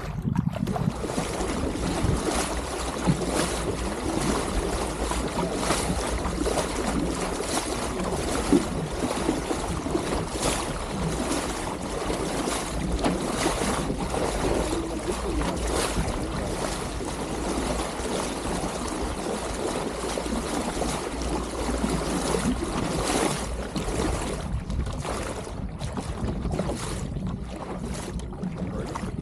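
Water rushing and splashing along the pram bow of a small SCAMP sailboat under way, with wind buffeting the microphone as a low rumble. The splashing thins out over the last few seconds.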